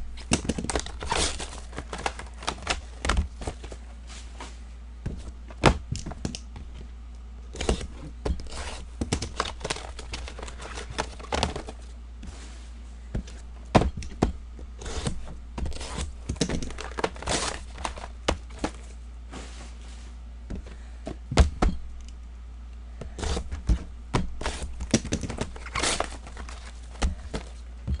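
Football trading card packs and boxes being opened and handled: crinkling and tearing of wrappers with irregular taps and knocks as cards and boxes are handled and set down.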